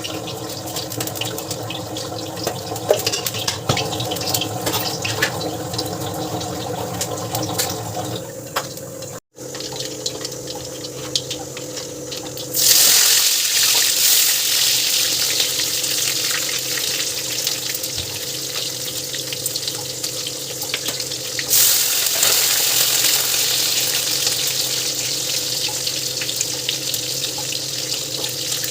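Tap water running into a sink, getting much louder about halfway through as a stronger stream hits the basin.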